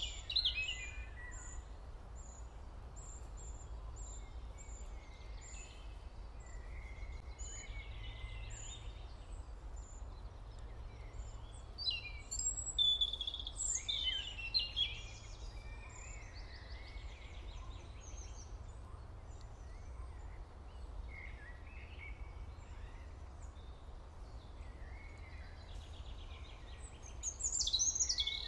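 Small birds chirping and twittering in scattered bursts, with a thin high peep repeating about once a second in the first few seconds, over a steady low hum.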